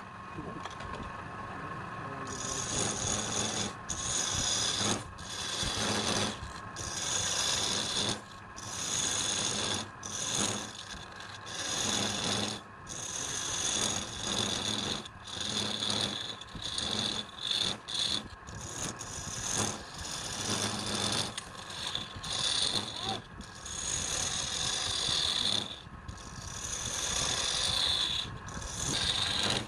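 A tool scraping and abrading wood in repeated strokes of about a second each, with short breaks between, starting about two seconds in over a steady machine hum.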